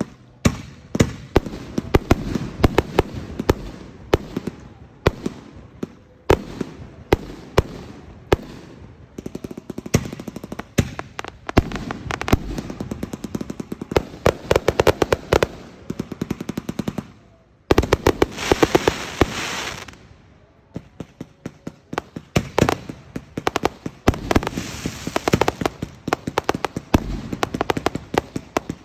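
Fireworks display: a continuous string of sharp aerial shell bursts and bangs, several a second, with two denser stretches of rapid crackling, one a little past the middle and one near the end.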